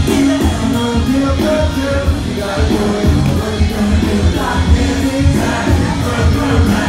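Live rock band playing loudly with a singer, a heavy, pulsing bass line under the vocals, as heard from within the audience on a phone microphone.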